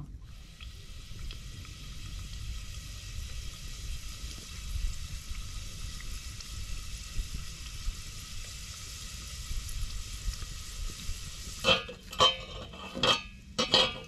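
Food sizzling steadily in a metal pot over a campfire. About two seconds before the end the sizzle stops and a few sharp metallic clinks follow as the pot is handled.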